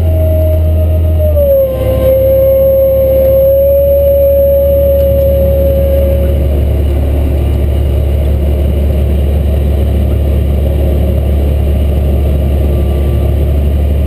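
Cat MT765C track tractor running steadily under load from the PTO-driven unloading auger of a Kinze 1050 grain cart emptying corn into a semi trailer, heard from inside the cab as a loud, steady drone. A whine steps down slightly in pitch about a second and a half in and fades out about halfway through.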